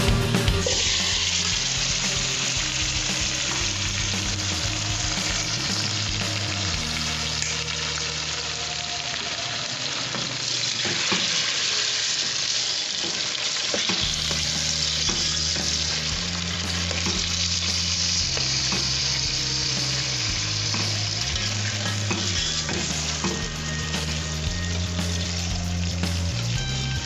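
Diced raw potatoes tipped into hot oil with fried onions in a steel pot and sizzling, with a spoon stirring them through the oil. The sizzle jumps up as the potatoes go in, about half a second in, and stays dense throughout.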